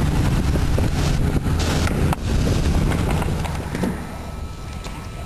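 Skateboard wheels rolling over rough concrete with wind on the microphone, and a sharp clack of the board about two seconds in. The rumble drops off about four seconds in.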